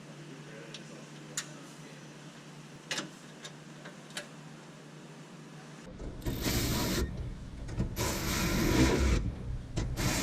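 A few light metallic clicks of bolts and hardware being handled. Then a power tool runs in two short bursts of about a second each, driving bolts into the condenser mounting bracket.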